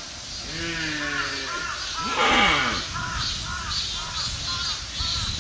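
Deer calling: a falling, pitched call, then a loud harsh call about two seconds in. A quick series of short, high calls follows, about two or three a second.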